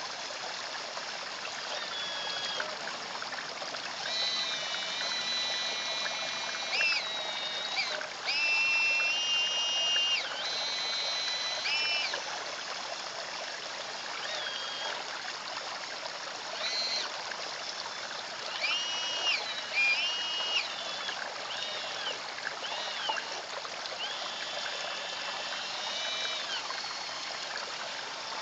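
Small electric motors of a radio-controlled Caterpillar excavator model whining high and steady in many short runs that start and stop sharply as the arm and bucket move, over the constant trickle of water running into a garden pond.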